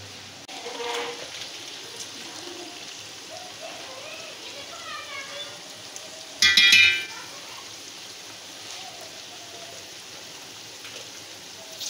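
Potatoes, carrots and peas sizzling in oil in a pot, a steady hiss, with a brief loud high-pitched sound about halfway through.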